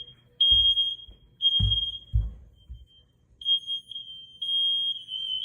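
Smoke alarm sounding its test alarm: a piercing high beep in half-second pulses with short gaps, turning almost continuous after about three and a half seconds as the beeps run together. A few dull knocks come in the first half.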